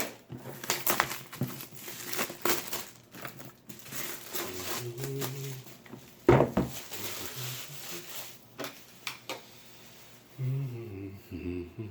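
Plastic shrink-wrap being peeled and torn off a board game box, crinkling and crackling in quick irregular bursts. About six seconds in there is a single loud thump.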